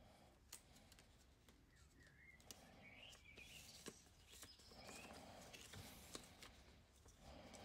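Faint rustling and crinkling of sticker backing paper and clear transfer film being peeled and handled by hand, with a few small clicks.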